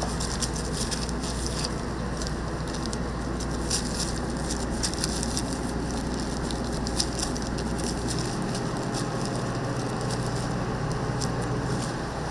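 Hot oil crackling and spattering as cheese stick donuts deep-fry, over a steady low hum.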